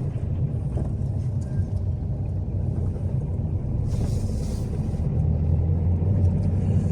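Steady low rumble of a car driving along a road, with a brief hiss about four seconds in.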